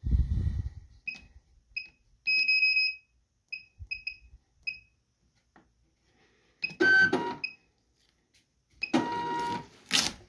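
Retail label scale beeping at each touchscreen tap: a string of short beeps, with one longer beep about two seconds in as the 'peel label' prompt comes up. Near the middle and again near the end, the scale's built-in label printer runs briefly with a whining feed motor as it prints a label.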